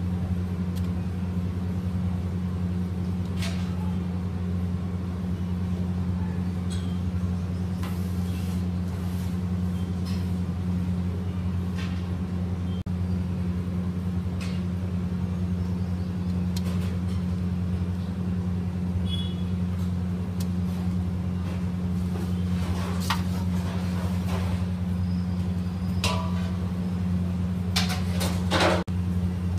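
A steady low hum throughout, with scattered soft knocks and clicks as fried bread pieces are set down on a steel tray, a few close together near the end.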